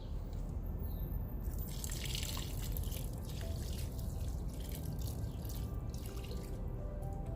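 Diluted liquid fertilizer being poured onto soil, a splashing, trickling pour that starts about a second and a half in and runs on steadily.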